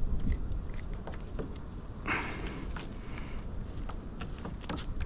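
Handling noise while a small bass is landed: scattered clicks and knocks over a low wind rumble on the microphone, with a brief hiss about two seconds in.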